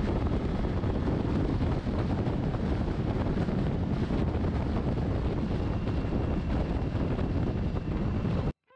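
Wind rushing over the microphone of a camera on a moving motorcycle at road speed, a steady loud rumble with road and engine noise underneath. It cuts off suddenly near the end.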